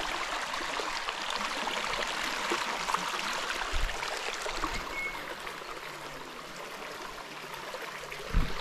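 Creek water flowing, a steady even rush, with a soft low bump about halfway through and a louder low thump near the end.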